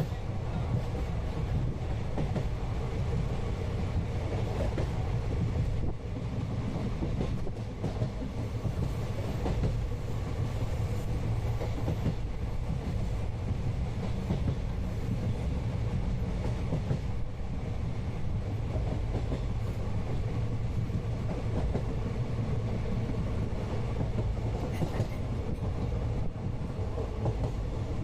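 Steady rumble of a moving Indian passenger train heard from inside the carriage, with the clatter of wheels on the rail joints.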